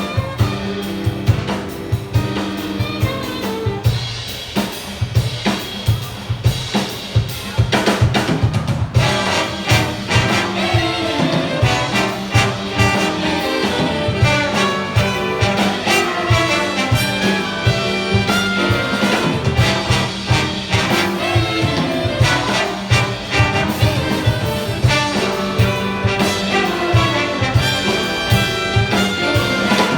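Big band playing a jazz piece live: brass section with trumpets and trombones over drum kit and bass, the ensemble growing fuller about nine seconds in.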